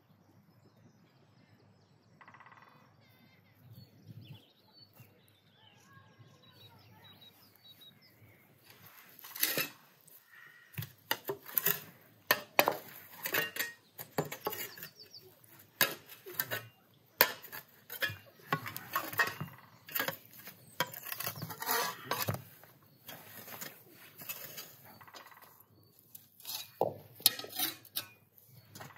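Metal spade scraping and scooping ash and embers, with repeated sharp clinks and scrapes against metal buckets and stones, starting about a third of the way in. Faint birdsong comes before it.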